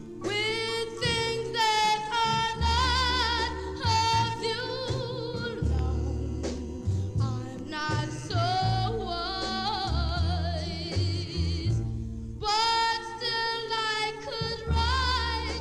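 Doo-wop song by a vocal group: a high lead voice sings with strong vibrato over lower backing voices and a pulsing bass line. About halfway through, the lead holds one long wavering note, then breaks off briefly before the singing picks up again.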